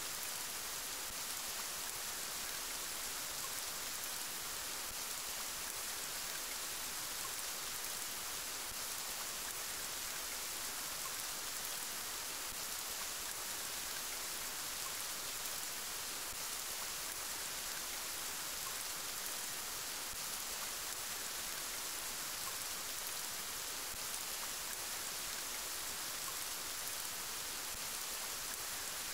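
Steady rain falling: an even hiss with no separate drops standing out, most of it high in pitch.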